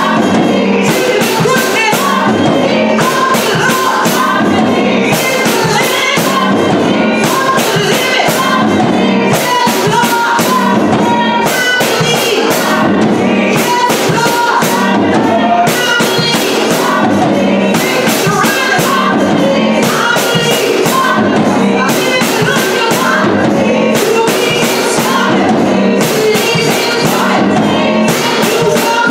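Live gospel praise song: women's voices singing over a keyboard and a drum kit keeping a steady beat.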